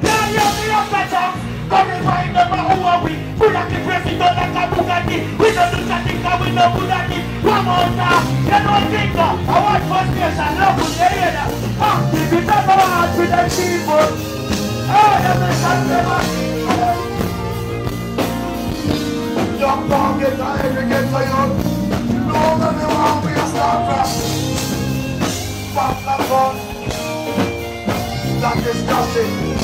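Live band music played on stage, with a saxophone among the instruments.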